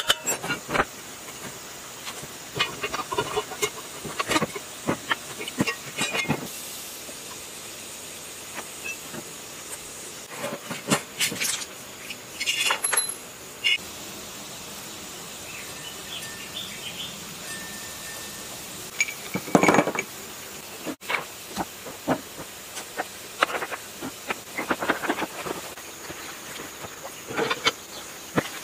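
Irregular clinks, knocks and scrapes of hand tools and metal parts as a rusty old generator is taken apart, over a steady hiss.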